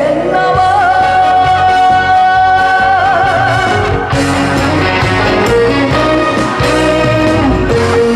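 Korean trot song: a male singer holds the last note of a line with vibrato over a band backing, then the band plays on alone without vocals.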